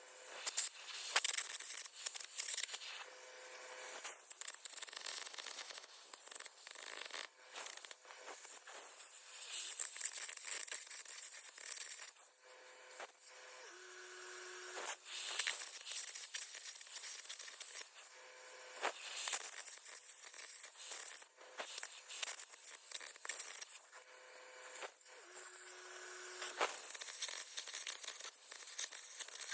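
Electric arc welding on steel, the arc crackling and sizzling in an uneven run of sharp pops. It breaks off and starts again several times, with a faint steady whine in a few short stretches.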